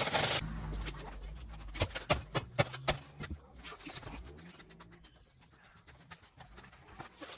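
Electric demolition hammer chiselling into concrete, cutting off about half a second in. It is followed by a low hum that dies away over the next few seconds and by scattered sharp knocks and clicks.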